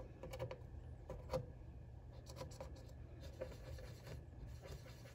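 Cotton swab scrubbing across the solder joints on the underside of a circuit board: faint, irregular scratchy strokes.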